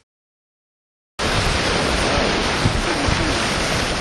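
Dead silence for about the first second, then a steady rush of wind and sea water around a sailing yacht under way, with wind on the microphone.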